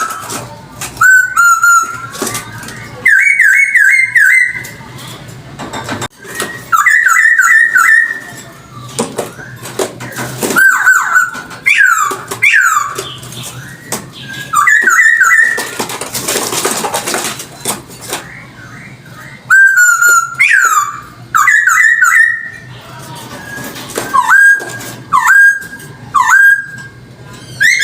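Poksay hongkong, a laughingthrush, singing loud whistled phrases of quick rising and falling notes, repeated again and again with short gaps between. About sixteen seconds in, a harsher, rasping stretch breaks in.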